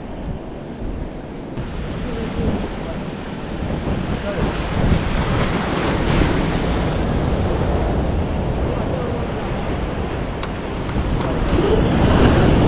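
Sea surf washing and breaking against the rocks of a breakwater, with wind buffeting the microphone. The surf grows louder near the end.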